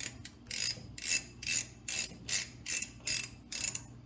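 Ratchet wrench clicking in short runs, about two or three a second, as it is swung back and forth to turn the axle lock nut through an eight-sided 2 9/16-inch axle nut socket.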